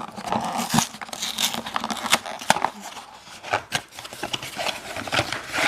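Foil wrapper of a Kinder Surprise egg crinkling and tearing as it is peeled open by hand, in many short crackles.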